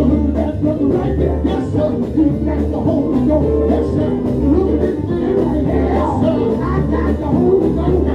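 Gospel band playing live, with bass, guitar and voices singing over a steady groove.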